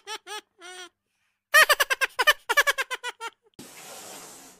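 High-pitched giggling laughter in quick repeated pulses, a short run at the start and a longer, louder run in the middle. About three and a half seconds in it gives way to a steady hiss.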